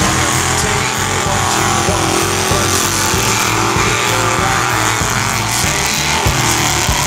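Engines of lifted 4x4 pickup trucks running hard under load while their tyres spin and churn through deep mud.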